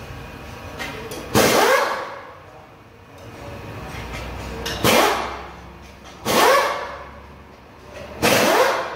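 Pneumatic impact wrench fired in four short bursts of about half a second each, the pitch dipping and then rising within each burst, as bolts are run loose during an engine teardown.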